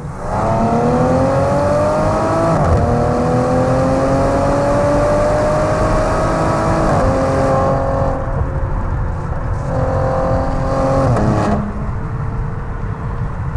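Maserati Levante's V6 engine accelerating hard, its pitch climbing through the gears with two quick upshifts, about two and a half and about seven seconds in. Near the end the throttle eases off and the engine note drops back under road noise.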